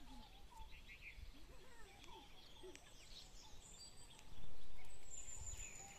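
Small birds chirping and calling here and there over faint background noise. About four seconds in, a louder sound sets in with a steady, very high-pitched tone and slowly fades.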